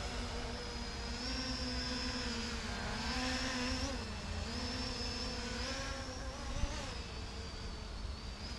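Whining buzz of the electric motors and propellers of small battery-powered radio-controlled aircraft flying overhead. The pitch rises and falls several times with throttle and passes.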